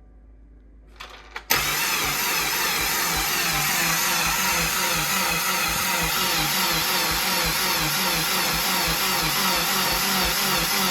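Starter cranking the rebuilt 2017 Subaru WRX's flat-four engine for about ten seconds without it firing, the engine turning over in an even rhythm of compression pulses. It starts about a second and a half in and stops abruptly near the end.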